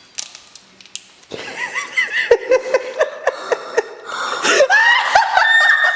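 People laughing hard in a long run of repeated breathy, wheezing bursts, starting about a second in, after a few sharp clicks.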